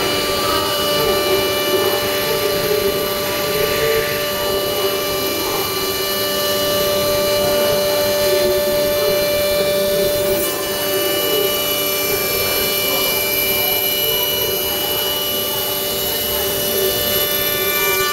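CNC router spindle cutting a wooden door panel: a steady machine whine with several pitches held over the continuous noise of the cut.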